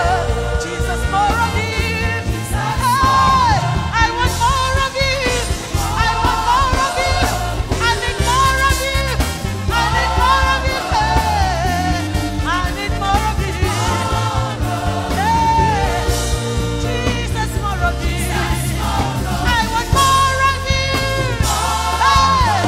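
Live gospel music: a woman sings lead into a microphone over a band with a steady beat, her voice gliding through long, bending notes.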